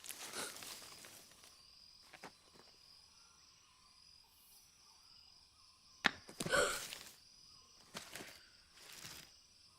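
Quiet film-soundtrack night ambience: a faint steady high insect trill, broken by a few short soft noises about six, eight and nine seconds in, the first the loudest.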